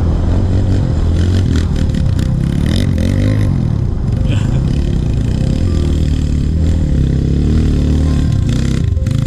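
Trail motorcycle engine running under way, its pitch rising and falling again and again as the throttle is worked, with scattered knocks and rattles.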